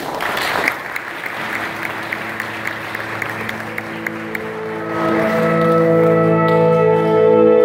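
Audience applause, dying away over the first few seconds, then a saxophone ensemble comes in with held chords that swell louder about five seconds in.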